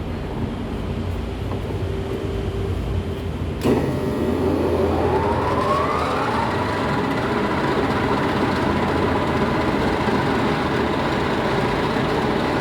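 C6232A1 metal lathe: the motor hums steadily, then about four seconds in the spindle is engaged with a sudden clunk. The geared headstock whines up in pitch for about two seconds, then runs on at a steady speed with a continuous gear whine.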